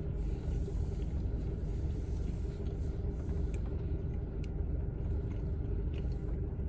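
Car engine idling, heard from inside the cabin as a steady low rumble with a faint hum, and a few faint clicks.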